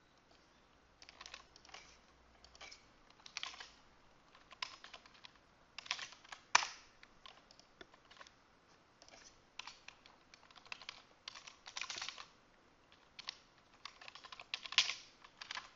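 Typing on a computer keyboard: irregular runs of quick keystrokes with short pauses between, starting about a second in, with one sharper key strike a little past halfway.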